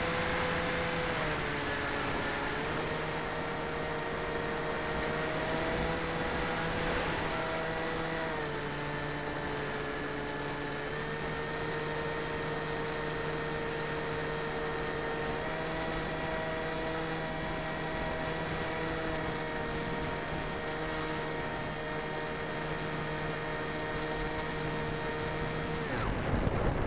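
Electric motor and propeller of an RC plane running, heard through the small built-in microphone of a wing-mounted keychain camera: a steady whine whose pitch steps down and back up a few times as the throttle changes, over a rush of air noise.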